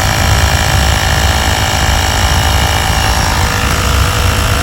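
Sun Joe 24V cordless air compressor running steadily: a loud low throb from its pump with a steady high whine over it, while it pumps air into an ATV tire that is not yet sealed on the rim's bead.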